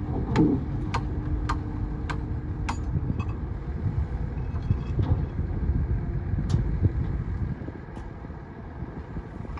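Heavy diesel earthmoving machinery running. Five sharp clicks come a little over half a second apart in the first few seconds, and a few fainter ones follow later. The engine sound drops off about three-quarters of the way through.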